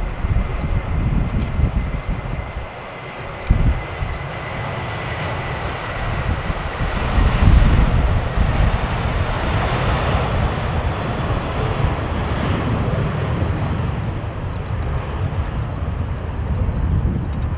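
Jet engines of an Airbus A321 running, a steady roar with a thin high whine over it in the first few seconds, growing louder around the middle.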